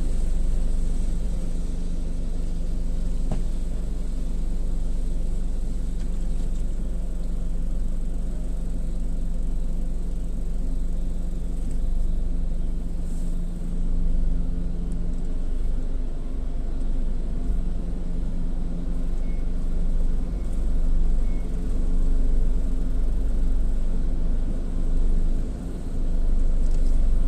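Gas-station automatic car wash machinery running with a steady low rumble and a constant motor hum that drops out briefly about halfway through, then resumes.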